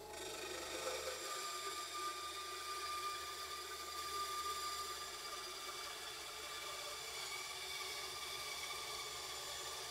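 Einhell TC-SB 200/1 benchtop band saw running with a steady whine while its blade cuts into a thick wooden board.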